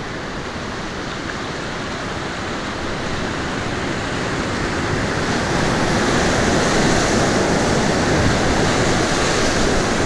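Whitewater rapids rushing, a steady roar of churning water that gets louder from about halfway in as the canoe runs into the waves.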